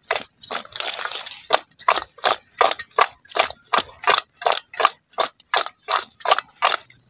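Cut fish pieces being tossed in a stainless steel bowl to coat them with salt and turmeric: a rhythmic swish and slap about two to three times a second, stopping near the end.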